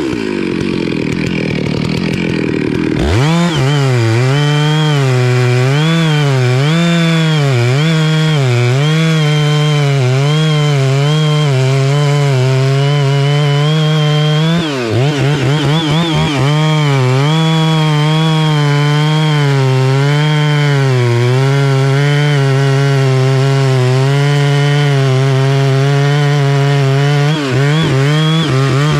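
Two-stroke chainsaw cutting into the base of a melaleuca trunk, its engine pitch rising and falling as the chain bogs in the wood. It drops back in the first few seconds, then runs hard again, with a brief dip about 15 seconds in.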